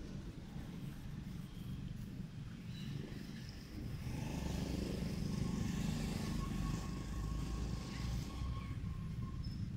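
Low, steady rumble of a motor vehicle's engine, growing louder about four seconds in, with a faint steady whine over it in the second half.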